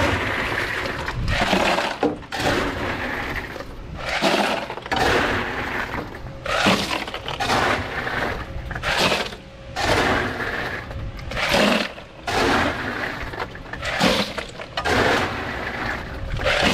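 Crushed ice being shovelled into a cooler over freshly caught fish. It comes as a dozen or so rattling, crunching pours, roughly one a second.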